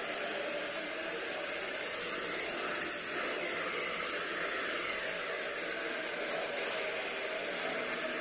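Euro-Pro 2-in-1 vacuum running steadily on a hard floor, with a lot of airflow rushing through it and a thin high motor whine above it. It has no roller brush.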